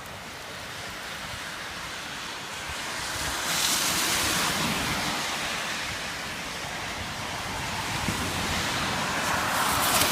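Rushing roar of a storm-flooded creek, a steady wash of water noise that swells louder twice.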